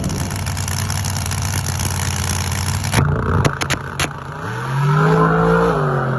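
Drag race car engine running hard, with a few sharp cracks about three seconds in, then the revs rise and fall.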